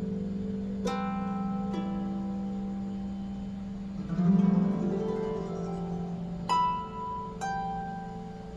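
Plucked string instrument notes ringing out one at a time over a sustained low drone, about four single notes with a wavering swell of tones in the middle, played for meditative sound healing.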